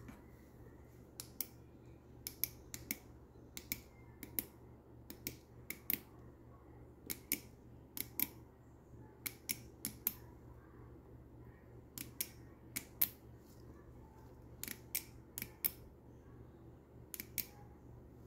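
Repeated sharp clicks, many in quick pairs, from hard plastic parts being handled and fitted together, over a faint steady low hum.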